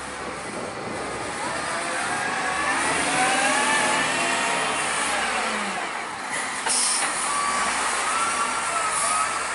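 Heavy truck engine working hard, with a whine that rises and then falls in pitch, and short hisses of air, like air-brake releases, about two-thirds of the way through and again near the end.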